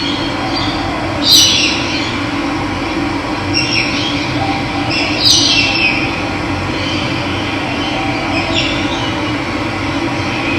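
Running water rushing steadily, with a bird calling over it in short downward-sweeping calls, four in all, the loudest about a second in and again about five seconds in.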